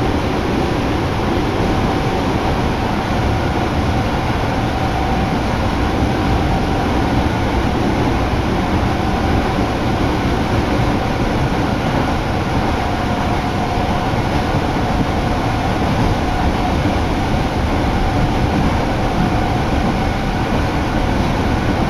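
Cabin noise inside an Osaka Metro Midosuji Line subway car running steadily between stations: an even rumble and rush of wheels on rails with a faint steady whine.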